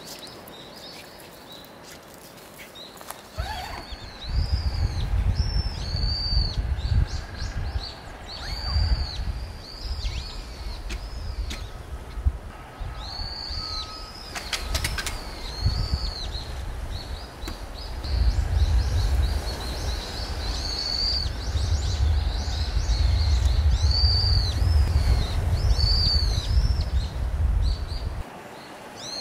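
Small birds chirping over and over in short, high, arched calls. Gusts of wind buffet the microphone with a low rumble from about three seconds in until just before the end.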